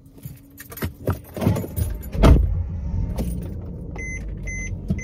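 Keys jangling and small clicks in a Mercedes-Benz car's cabin, then a loud thump a little past two seconds in, after which a low steady rumble sets in. From about four seconds in, the car's warning chime beeps steadily, a little over twice a second.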